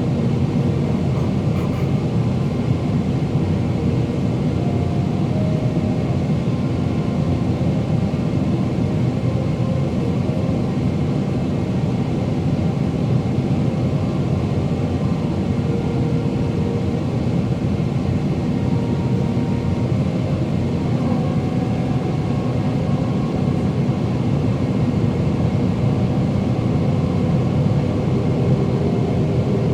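Boeing 777-300ER cabin noise heard from a window seat: the steady roar of the GE90 turbofans and airflow, with faint tones that wander slightly in pitch.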